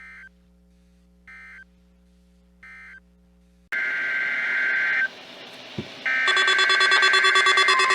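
Emergency Alert System SAME data bursts, the two-tone digital buzz of weather radio alerts. First three short bursts about a second and a half apart over a low hum, the pattern of an end-of-message code. Then a louder recording cuts in with a longer data burst, a stretch of static, and another burst that runs into a loud multi-tone alert signal near the end.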